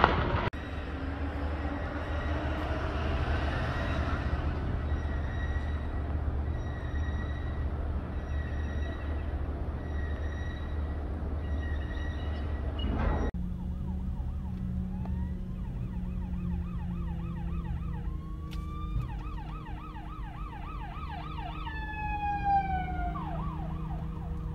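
Emergency-vehicle sirens wailing and yelping, heard from inside a moving car over the car's steady low hum, starting about halfway through. Before that comes a steady rumble with a high beep repeating about once a second, which stops abruptly.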